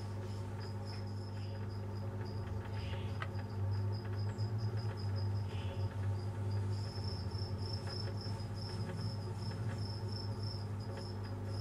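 An insect chirping in a steady high, pulsing trill over a steady low hum.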